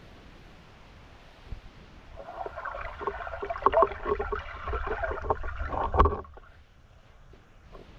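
Underwater sound heard through an action camera's waterproof housing: about two seconds in, a dense run of bubbling, small clicks and crackles with a low rumble starts, lasts about four seconds and ends in a sharp knock.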